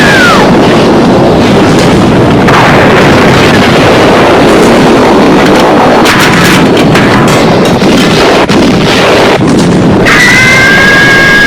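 Ear-rape destruction sound effect: explosions and crashing noise boosted until it clips into a constant distorted roar at full loudness. A high, steady whistle-like tone joins in about ten seconds in.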